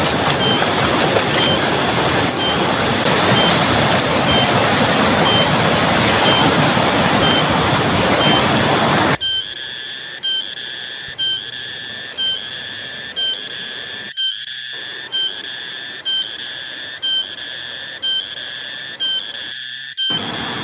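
Loud, steady rushing of a fast river. After about nine seconds it drops away abruptly, leaving a high whistling call that pulses about once a second.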